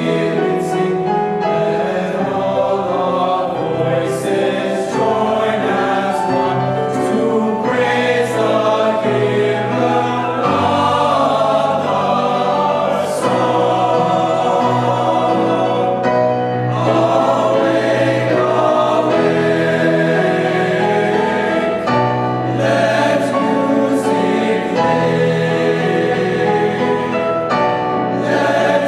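Boys' and young men's choir singing in parts, holding sustained chords with a low bass line beneath.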